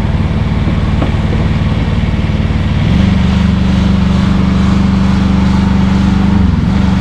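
Gasoline chainsaw engine running steadily, stepping up to a higher speed about three seconds in and dipping briefly near the end.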